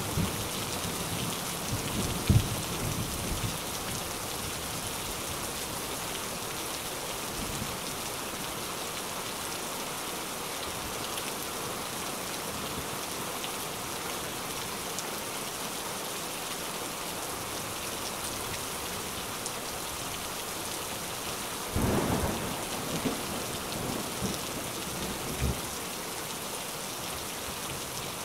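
A steady, even hiss throughout, with a few soft knocks from plastic cups and film being handled on a silicone mat: a sharp one about two seconds in and a cluster around twenty-two seconds in.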